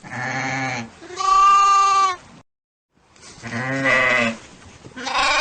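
Sheep bleating: four drawn-out bleats, each about a second long, with a short silence after the second.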